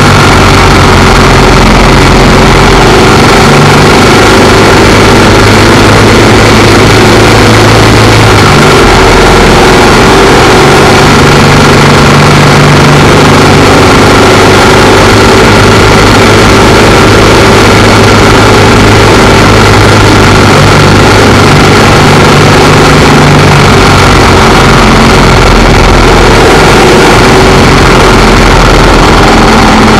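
Royal Enfield Bullet 500's single-cylinder engine running under way, its pitch stepping up and down several times with throttle changes, under a constant rush of wind and road noise.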